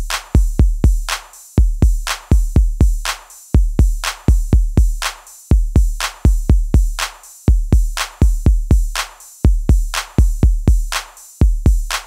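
Electronic background music with a drum-machine beat: deep bass kicks in quick clusters, each with a sharp click on top.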